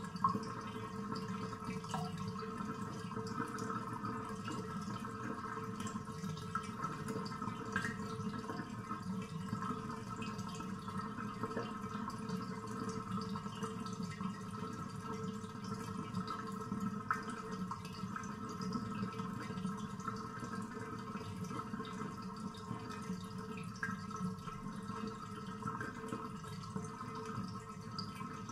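Bathtub draining: water running steadily down the drain with a hollow gurgle, and a few light drips.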